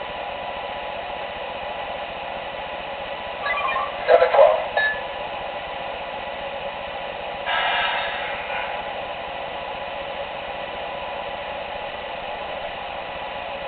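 Steady idle hiss from MTH O-gauge model subway trains' onboard sound speakers, with a short burst of sound about four seconds in and another about seven and a half seconds in.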